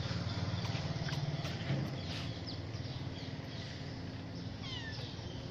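A steady low hum with a short, high, falling kitten mew near the end.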